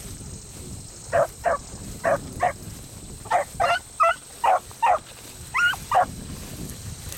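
Beagles barking while working a rabbit's scent: about a dozen short barks, often in quick pairs.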